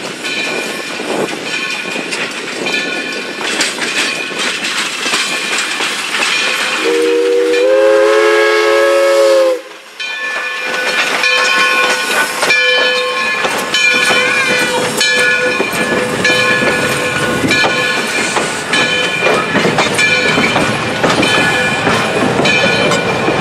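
Black River and Western No. 60, a 2-8-0 steam locomotive, rolling slowly past with its coaches, its wheels and running gear clanking steadily over the rail joints. About seven seconds in, its chime whistle sounds one chord of several notes for about three seconds, the loudest sound here, and cuts off sharply; steady high ringing tones run under the clanking afterwards.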